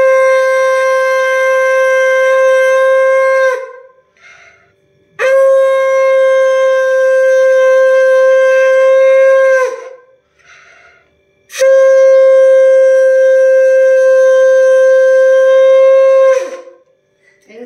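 Conch shell (shankh) blown in three long, steady blasts of about four to five seconds each, with short pauses for breath between them; the last blast sags in pitch as it dies away.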